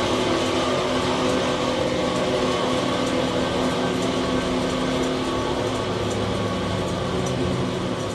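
Sawmill machinery running steadily: a motor's even hum holding several steady tones.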